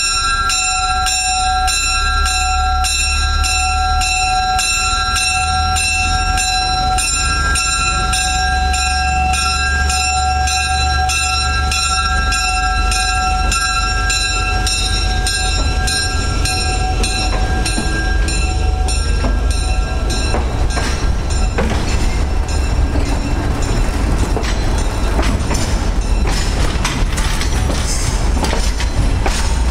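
Train rolling on rails, a low rumble with a bell ringing about twice a second over it. The bell stops about two-thirds of the way in, leaving the rumble, clatter and scattered clicks of wheels on the track.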